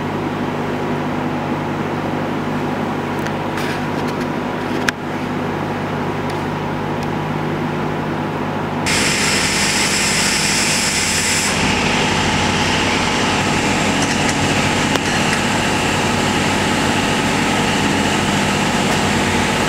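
1970 Dodge Challenger's freshly rebuilt V8 idling steadily, its idle just turned down. There is a single knock about five seconds in, and about nine seconds in the sound grows a little louder with more hiss on top.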